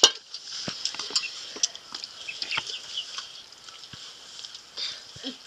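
Light clicks and taps of fingers scraping rice from metal plates, with faint, short chirps in the background.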